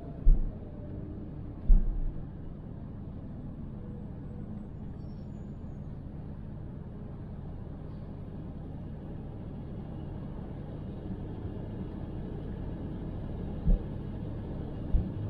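Car driving, heard from a dash camera inside the cabin: a steady low road rumble, with a few short, sharp low thumps about a second in and near the end.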